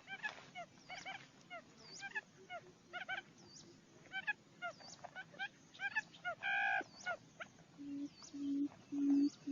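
Barred buttonquail booming: from about 8 s in, a low hooting note repeats about twice a second and grows louder. Before it, many short high chirping calls repeat, with one louder honk-like call about six and a half seconds in.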